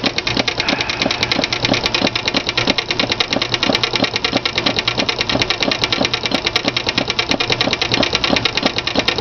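Antique miniature live-steam plant running: a small steam engine and an early Simplex steam feed pump working together, a rapid, even ticking with a slower stroke about three times a second. The pump is running steadily, its formerly erratic valve events fixed.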